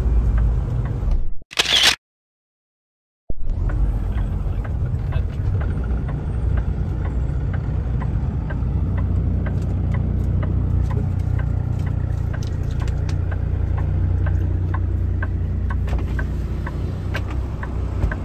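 Kenworth T680 semi-truck's engine and road noise heard inside the cab: a steady low rumble, broken by about a second of dead silence near the start, with faint regular ticking over it.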